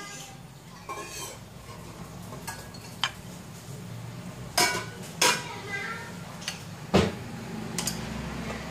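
A handful of sharp clinks and knocks of a ceramic bowl against a china plate as food is turned out of the bowl onto it, the loudest a heavier knock about seven seconds in. A steady low hum runs underneath.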